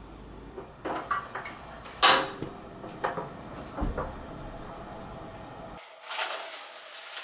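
A few sharp clicks and knocks, the loudest about two seconds in, as the knob of a portable butane gas stove is turned to light the burner under a cast-iron skillet. Near the end comes a crackly rustle of plastic cling film being pulled off a bowl.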